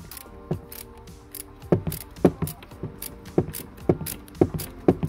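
Hand ratchet clicking in short, irregular bunches of strokes as it undoes a 16 mm nut on a car's front suspension; the nut is stiff at first, then comes off.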